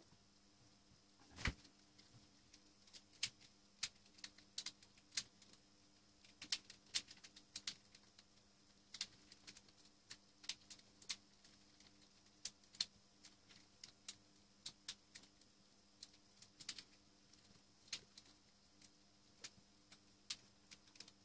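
Scattered small sharp clicks and ticks of hand wiring work: an automatic wire stripper snapping on wires and the wires and tools being handled, at irregular intervals over a faint steady hum.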